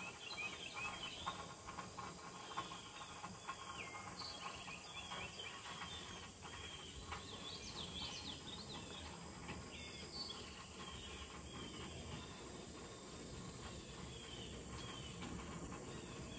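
Outdoor country ambience: many birds chirping and singing in short phrases, over a steady high-pitched insect drone and a faint low rumble.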